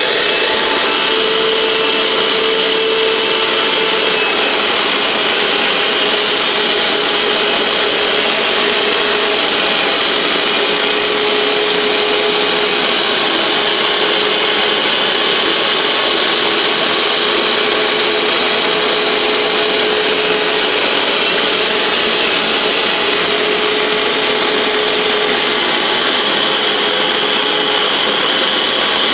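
Hoover SteamVac SpinScrub carpet cleaner, a 12-amp model, running steadily: a loud, even motor rush with a high whine on top.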